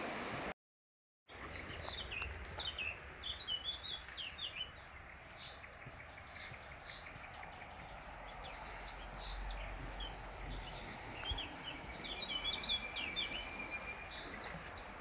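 Mountain stream rushing steadily beneath forest songbirds singing in quick chirping phrases, in two bouts: just after the start and again near the end, the second with a held whistled note. Just under a second in, the sound drops out completely for a moment at a cut in the recording.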